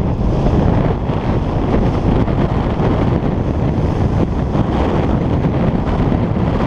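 Wind buffeting the microphone of a skier's action camera on a downhill run, with the skis hissing and scraping over packed, groomed snow.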